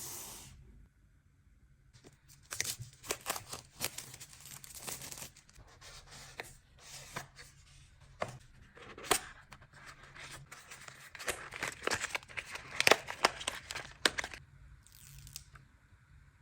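Smartwatch packaging being unboxed by hand: wrapping torn open and crinkled, with sharp clicks and taps of the box, in irregular bursts from about two seconds in until near the end, loudest toward the end.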